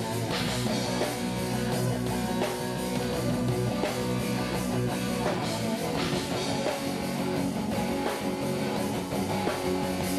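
Live rock band playing loud, dense music with guitars, bass and drums.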